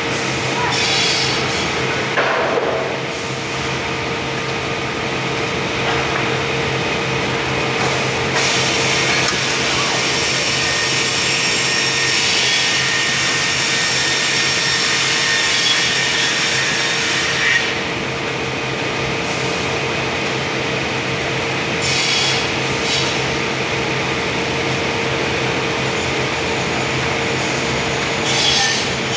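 Sawmill machinery running steadily with a constant hum. A saw cuts through timber for a stretch in the middle, its hiss rising and then dropping away. Now and then there is a sharp knock of wood or metal.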